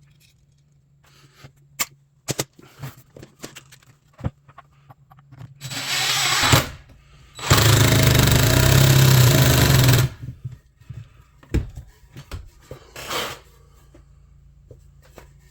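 Cordless power driver driving screws into a wooden block: a short run, then a longer run of about two and a half seconds, with light knocks of wood being handled around them.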